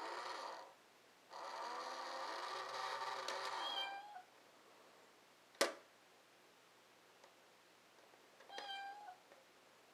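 Cat meowing: one long drawn-out meow that falls away at its end, starting about a second in, and a short meow near the end, with a single sharp click between them.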